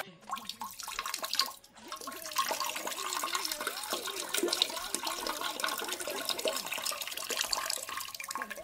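Toilet flushing: water rushing and gurgling in the bowl, steady for several seconds after a brief break near the start.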